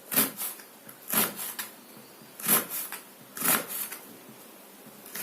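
Kitchen knife slicing an onion on a cutting board: a string of short, sharp cuts and knocks against the board, about one or two a second at an uneven pace.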